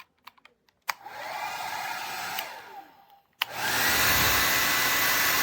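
A few small clicks, then the Conair Cord-Keeper 1875 W hair dryer is switched on with a click and runs for about a second and a half before winding down. It is clicked on again and runs louder, with a steady high whine over the rush of air.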